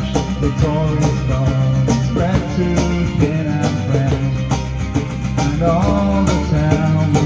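Live folk band playing an instrumental passage between sung lines: plucked strings and a melody line over a steady beat.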